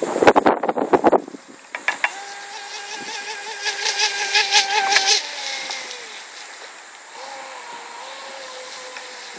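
Brushless electric RC speedboat running flat out across the water. Its motor's high whine comes in about two seconds in, wavering, with fast ticking over it, then drops in pitch and fades after about five seconds, staying faint and wavering to the end. A burst of sharp clicks and knocks fills the first second.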